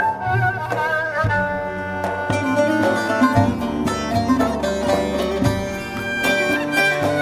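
Instrumental passage of a Turkish folk song: a violin melody with wavering held notes, joined about two seconds in by quickly plucked strings over a recurring low bass.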